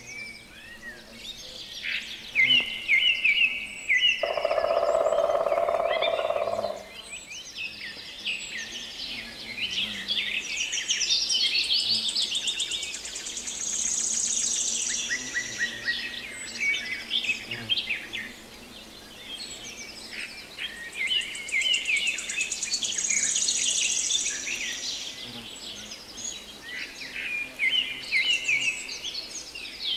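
Several birds singing and chirping, overlapping songs with repeated high trills. A low buzz lasts a couple of seconds about four seconds in.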